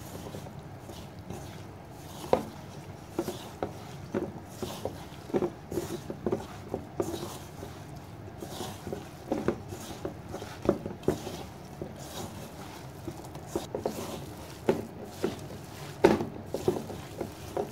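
Hands mixing raw chicken pieces with gram flour and wet spice paste in a metal bowl: irregular soft squelching and patting, with sharper knocks against the bowl, the loudest about two seconds in and near the end.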